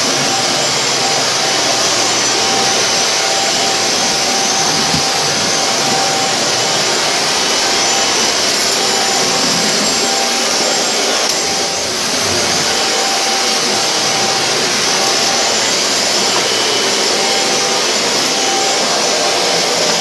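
Vacuum cleaner running steadily: a constant rush of airflow with a steady motor whine above it.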